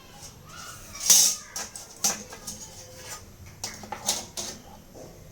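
A short hiss about a second in, then a string of light, irregular clicks and taps from hands working on the opened laptop's plastic case and internals.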